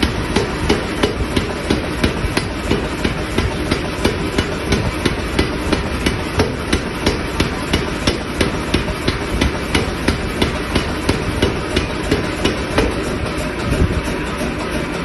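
Power hammer striking red-hot steel between its dies, forging the bar in a steady rhythm of about three blows a second, with the machine's steady running noise between blows.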